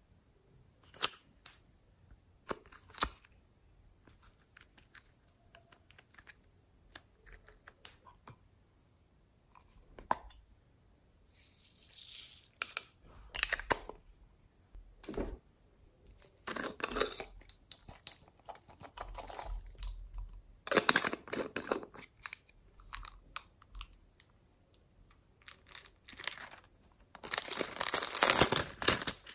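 Slime being squished, poked and stretched by hand, giving sharp clicking pops and wet crackling. Sparse single clicks at first, then longer crackly stretches, with the loudest crackling near the end.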